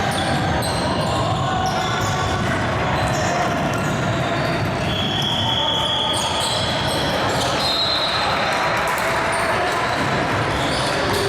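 Basketball being dribbled on the court during a game, over the steady noise of a busy gym.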